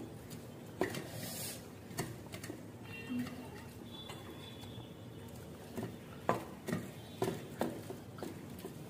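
Eating sounds of two people eating rice and curry by hand from steel plates: scattered soft clicks and smacks, most of them in the second half.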